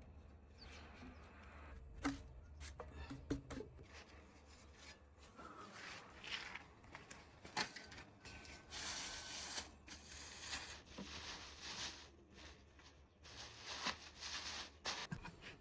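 Food preparation at a work surface: scattered light knocks and clicks, with several stretches of rustling and scraping, the longest about nine seconds in and again near the end.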